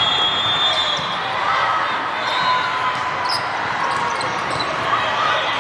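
Indoor volleyball rally: the ball struck on a serve and then at an attack at the net, over a steady hubbub of players and crowd, echoing in a large hall.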